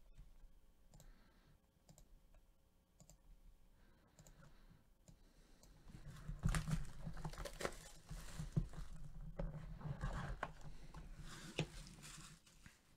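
Clear shrink wrap being picked at with a fingernail and peeled off a cardboard trading-card box: faint scratches and clicks at first, then crinkling plastic with sharp clicks from about six seconds in.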